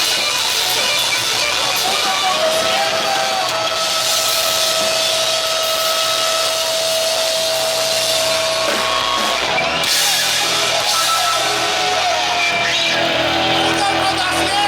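Rock band playing live: loud distorted electric guitars and drum kit with crashing cymbals, a long held note sustained for about six seconds starting a couple of seconds in.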